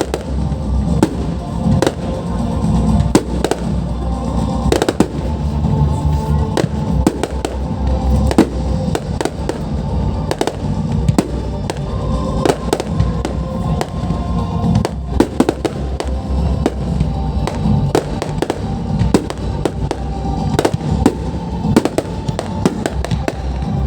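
Fireworks display: a dense, continuous barrage of sharp bangs and crackles over a deep rumble.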